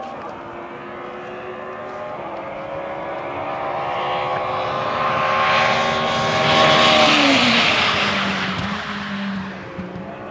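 Endurance racing car approaching at speed at night, its engine note building to a peak about seven seconds in, dropping in pitch as it passes close, then fading away down the track.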